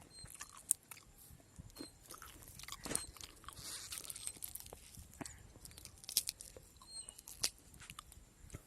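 A person biting into and chewing freshly picked sweet corn: a series of short, crisp crunches at irregular intervals.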